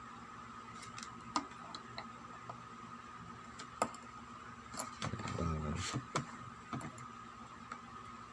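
Light clicks and taps of multitester probes touching diode leads on a circuit board, over a faint steady high tone, with a short murmur of voice about five seconds in.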